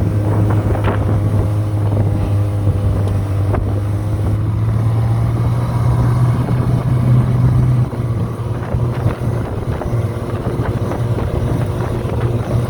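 Small motorboat's engine running steadily at speed, with wind buffeting the microphone.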